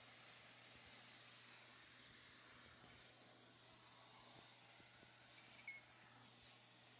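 Near silence: faint steady hiss and a low hum of room tone, with one brief faint blip about three-quarters of the way through.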